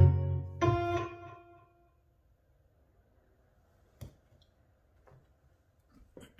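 The closing chord of an instrumental backing track, with a bass note underneath, struck again just under a second in and ringing out until it fades away: the end of the song. Then near silence, broken by a single faint knock about four seconds in.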